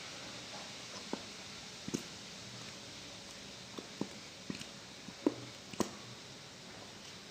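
A few light clicks and taps from small objects being handled over a faint steady hiss, while slime-making materials are set out.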